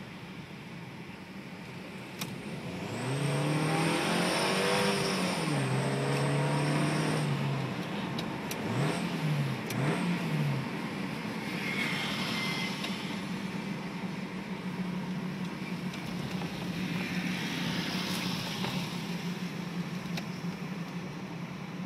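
Toyota Rush engine idling, then revved for about four seconds with a thin high whistle from a turbo-whistler exhaust tip riding over it, followed by two quick throttle blips before it settles back to idle.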